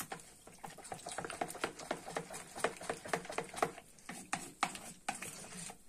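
A spoon stirring and scraping a thick yogurt, flour and egg mixture, thinned with soup broth, in a plastic bowl: quick, irregular clicks and scrapes several times a second.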